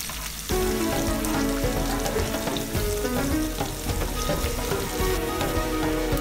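Sliced onions sizzling in hot oil with whole spices in a frying pan, stirred with a wooden spatula in the second half. Background music with a stepping melody comes in about half a second in.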